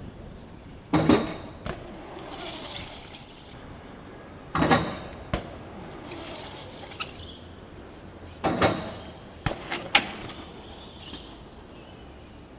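BMX bike clattering on concrete: three loud impacts a few seconds apart, with lighter clicks and knocks between them.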